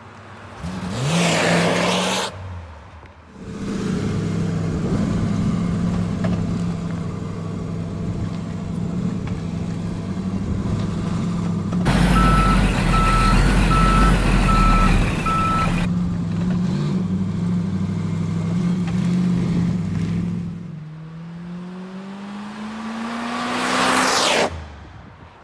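1977 Chrysler Town & Country wagon's 440 V8 running steadily as the car drives by, with a loud surge as it passes close about a second in. A louder, deeper noise cuts in abruptly for about four seconds midway. Near the end the engine rises in pitch as the wagon accelerates and passes close again.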